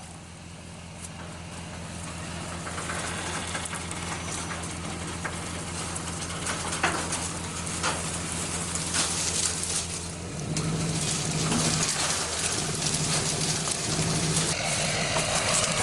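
ATV engine running with a steady low drone while the quad moves along, with scattered knocks over it. The engine note grows stronger about ten seconds in.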